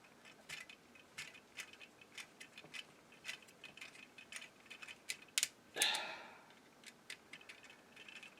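Small plastic parts of a transformable toy figure clicking as a kit piece is worked into place: a string of sharp, irregular clicks, with a short scrape about six seconds in.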